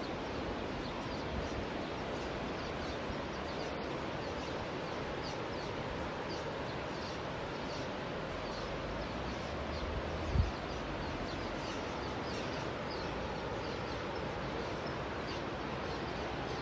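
Small birds chirping over a steady background rush of outdoor noise, with one dull low thump about ten seconds in.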